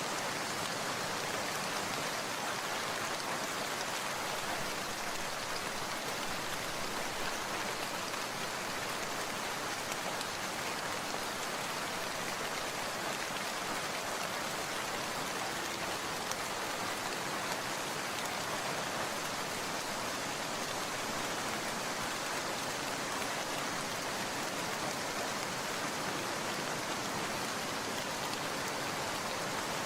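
Steady rain falling: a dense, even hiss of many drops that holds unchanged throughout, with no thunder.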